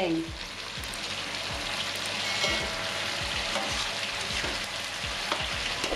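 Chili spice paste with green chilies and bell pepper sizzling steadily in a ceramic-coated wok while a wooden spatula stirs through it.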